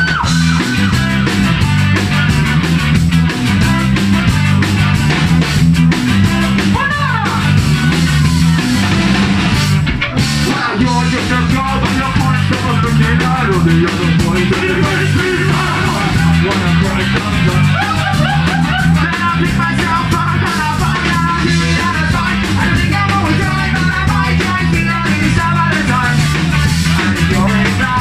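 Ska-punk band playing live and loud: driving drums and bass, electric guitar, and a horn section of saxophone and trombone, with a sung lead vocal over the top.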